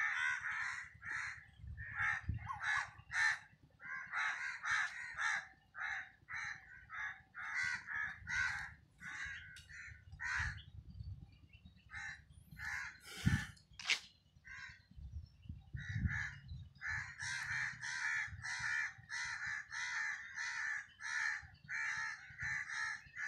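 Crows cawing over and over, short harsh calls coming two or three a second with brief pauses. About halfway through, two sharp knocks stand out louder than the calls.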